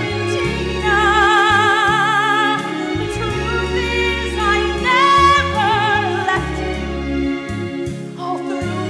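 A woman singing long held notes with strong vibrato over instrumental accompaniment with a steady bass line, in the style of a stage-musical number.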